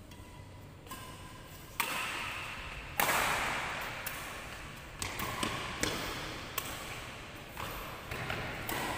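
Badminton rackets striking a shuttlecock in a rally, sharp hits about once a second, echoing in a large sports hall.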